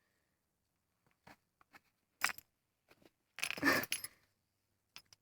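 A few short clinks and rustles as the cat climbs about among objects. The loudest is a brief jangly cluster about three and a half seconds in.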